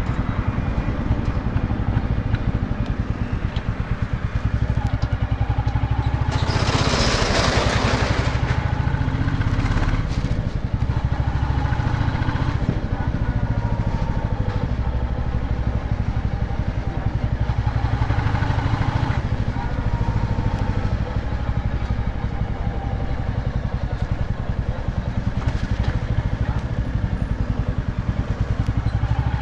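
Royal Enfield Bullet's single-cylinder engine running steadily while the motorcycle is ridden, its exhaust pulsing with a rapid even beat. About six and a half seconds in, a loud hiss rises over it for about two seconds.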